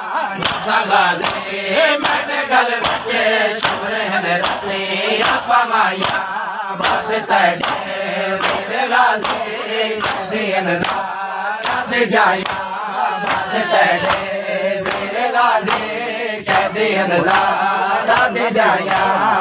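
A crowd of men chanting a noha in unison while beating their chests with open hands in matam. The slaps land on a steady, brisk beat of about two to three a second.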